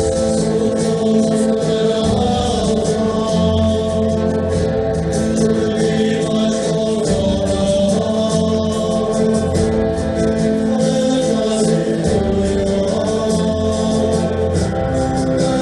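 Grupero band music with a lead vocal over guitars, bass and a steady percussive beat.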